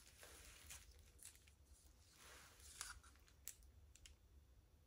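Faint scraping and several light clicks of a small palette knife working thick acrylic paint in a small cup.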